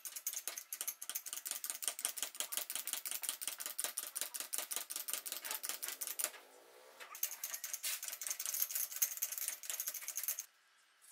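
Rapid, even mechanical clicking, several clicks a second, that pauses briefly a little past the middle, then resumes and stops shortly before the end.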